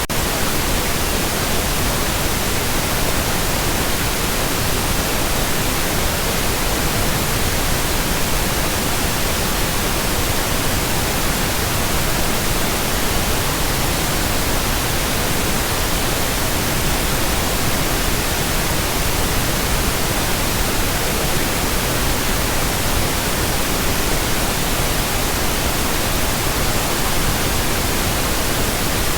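Pink noise: a steady, even hiss spread across the whole range from deep to high, unchanging throughout.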